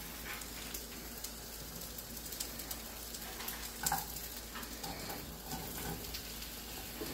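Onions frying in a pan on a gas burner, sizzling steadily, with light taps and clatters as sliced mushrooms are tipped in from a plastic tub, the loudest about four seconds in.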